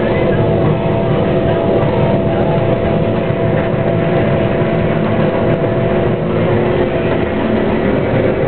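CAT 485R track combine running under load while harvesting soybeans: a steady mechanical drone with several held whining tones, one of which cuts off about six seconds in.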